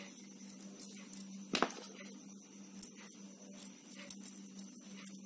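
Faint handling sounds as the element wires are fed into the handle of an electric soldering iron: small metal clicks and scrapes, with one sharper click about one and a half seconds in, over a steady low hum.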